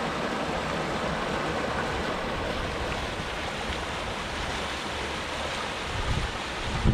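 Creek water running steadily through an open channel between shelves of ice, as an even rushing. Right at the end a gust of wind buffets the microphone.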